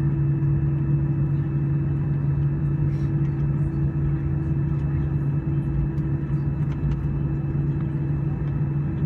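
Steady drone of an Airbus A320's jet engines and airflow heard inside the cabin, a constant hum with a low tone that does not change.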